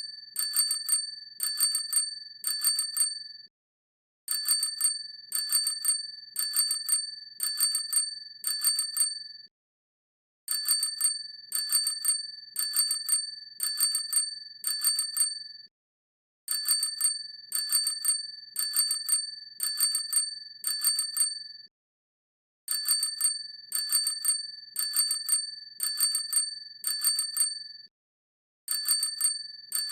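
Bicycle hand bell ringing with a clear, high ring, struck in quick double rings about once a second. The rings come in bursts of about five seconds with a pause of about a second between bursts.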